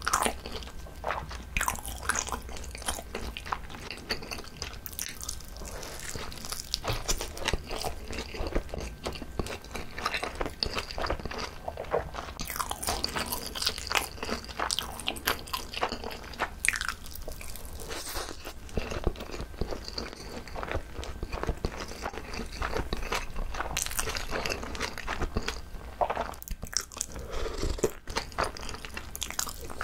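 Close-miked eating sounds: biting through a whole seaweed-wrapped cheese gimbap and chewing it, with many short sticky, wet mouth clicks. The roll has no vegetables inside, so the chewing is soft rather than crisp. Near the end, a spoonful of tteokbokki sauce is sipped from a spoon.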